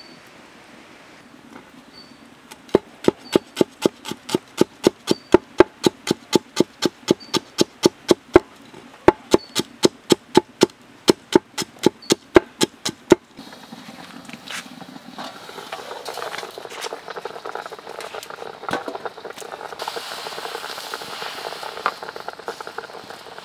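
A knife chopping green chilies on a wooden chopping board, steady strokes about three a second, stopping abruptly about halfway through. Then a steady bubbling hiss of water boiling in a wok beneath a plate of steaming fish.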